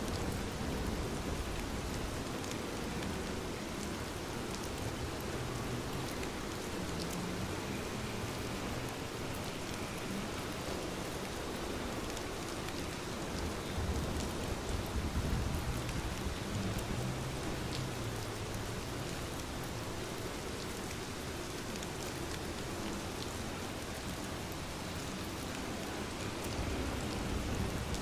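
Steady rain falling on surfaces, a continuous hiss with scattered drop ticks and a low rumble underneath, swelling slightly a little past the middle.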